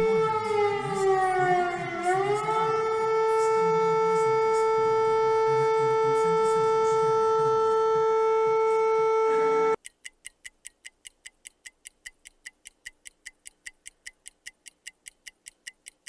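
Civil-defence air raid siren sounding one steady tone, its pitch sagging about two seconds in, then recovering and holding; it cuts off suddenly near ten seconds. A countdown clock then ticks about four times a second.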